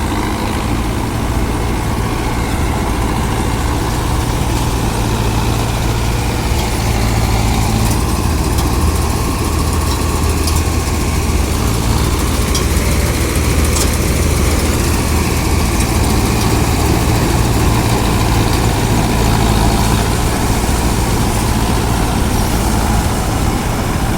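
Heavy diesel engine of wheat-harvesting machinery running steadily with a loud, even low hum, a few faint ticks over it.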